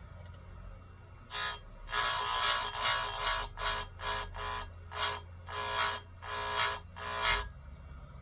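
A bench chainsaw-chain grinder's wheel grinding the cutters one after another: about a dozen short, harsh grinding bursts, roughly two a second, starting about a second in and stopping near the end, over a low steady hum.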